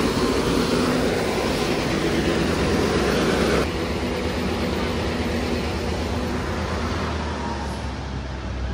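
Tanker truck's engine running steadily close by. About a third of the way in the sound drops suddenly to a quieter, more distant rumble.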